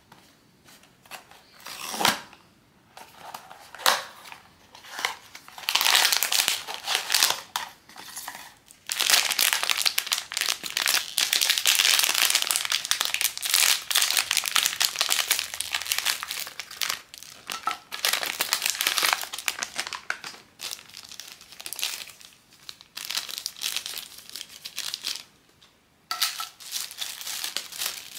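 Blind-box figure packaging crinkled and handled up close: a few sharp crackles early, then a long stretch of dense, steady crinkling, a brief pause, and more crinkling near the end.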